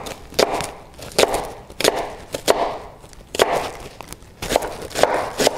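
Chef's knife chopping a raw onion on a plastic cutting board: a series of uneven, crisp knife strikes against the board as the onion is cut through.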